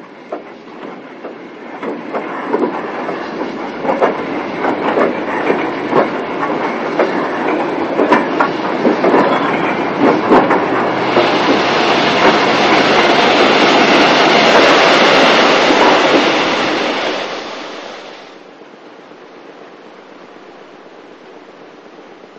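Steam locomotive working a train, with beats and wheel clatter growing steadily louder, loudest for several seconds, then cutting away about eighteen seconds in to faint film hiss.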